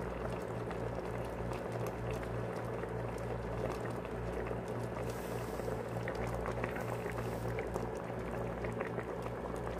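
A pot of fish with malunggay leaves in coconut milk simmering on the stove, bubbling steadily over a low steady hum. There are a few faint clicks later on as the metal ladle is moved in the pot.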